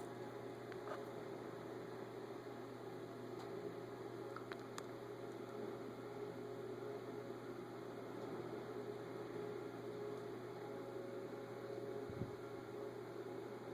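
Steady low electrical hum with background hiss, with a few faint ticks and a soft low thump near the end.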